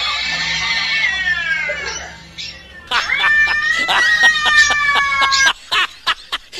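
A cat making two long, drawn-out calls. The first falls in pitch and fades out over the first couple of seconds. The second starts about three seconds in and lasts about two and a half seconds, with a string of sharp clicks through it and a few more clicks after it.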